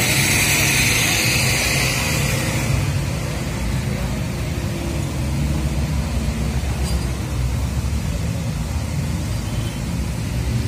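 Road traffic on a steep bend, led by the low, steady engine of a high-loaded Mitsubishi Canter truck pulling slowly uphill, with motorcycles passing close by. Some hiss in the first couple of seconds; an engine note rises near the end.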